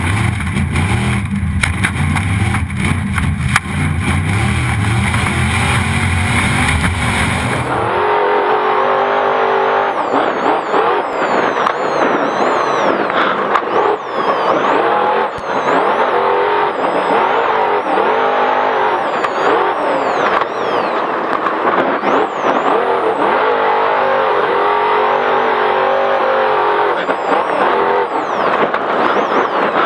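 Trophy Truck's racing engine heard from inside the cab, revving up and down hard as the truck races over rough desert track, over constant road and wind noise. For the first eight seconds the sound is a steady low rumble and hiss, then it switches abruptly to the engine rising and falling in pitch.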